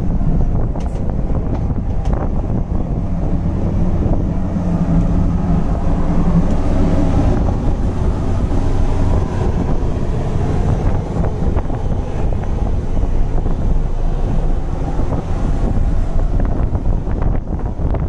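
Steady low hum of a moored ferry's onboard machinery, with wind buffeting the microphone.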